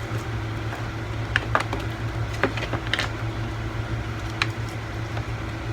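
A handful of short, irregular clicks of laptop keys being tapped, the Escape key pressed repeatedly at power-on to reach the startup boot menu, over a steady low hum.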